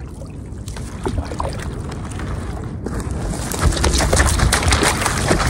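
Wind rumbling on the microphone over water, with a thick patter of small splashes and crackles starting about three and a half seconds in and growing louder.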